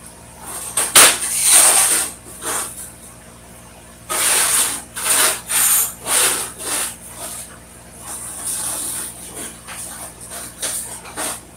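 Electric arc welding in short bursts: a series of tack welds, each about half a second to a second long with pauses between, fixing steel hinges onto a propane tank.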